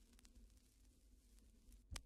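Near silence: a faint low hum, with a single faint click near the end.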